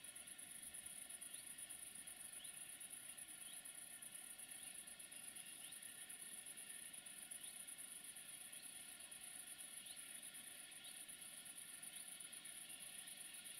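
Faint high-pitched insect stridulation, like crickets, with short rising chirps about once a second.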